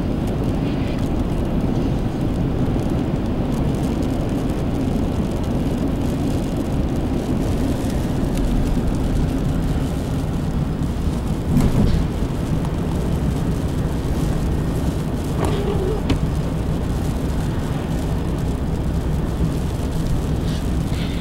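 Steady low rumble of a moving car's road and wind noise, heard from inside the cabin while pacing a freight train, with a brief louder bump about halfway through.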